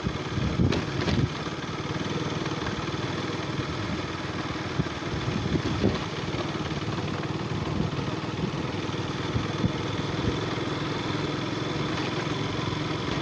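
Motorcycle engine running steadily, with a few short knocks about a second in.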